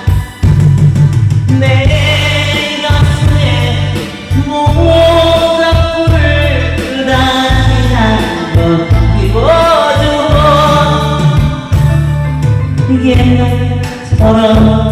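A singer performing a Korean pop song live over backing music with a strong pulsing bass beat, the voice carrying the melody with a sliding rise in pitch around the middle.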